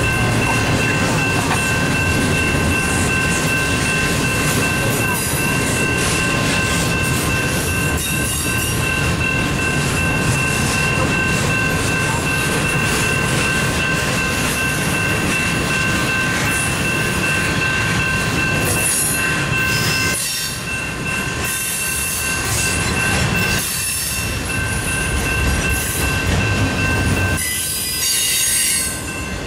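Freight train cars, double-stack intermodal containers and then autoracks, rolling past on steel wheels with a steady high-pitched wheel squeal over the rumble. The squeal stops near the end.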